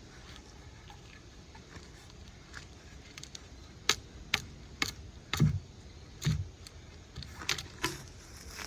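Wood being handled after a pocket-chainsaw cut: several sharp cracks and knocks with two dull thuds partway through, not sawing.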